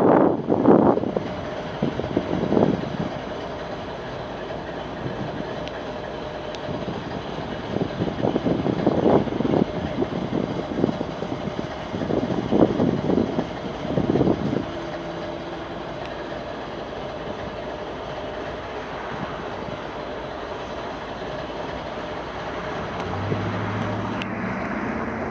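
Freight train rolling past on the rails, a continuous rumble with several irregular louder bursts in the first half.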